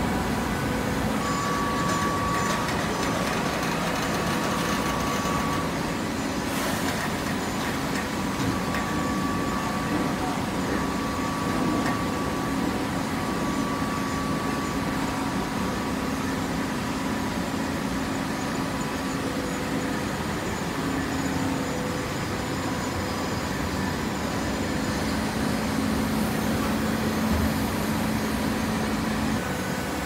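Automatic horizontal hydraulic baler running: a steady mechanical hum with a faint higher whine that comes and goes.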